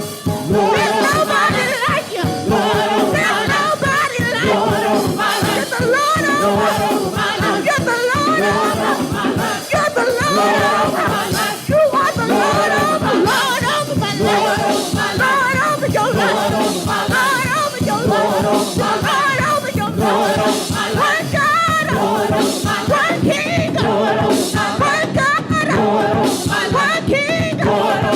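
Gospel praise team singing in chorus over live band accompaniment with a steady beat.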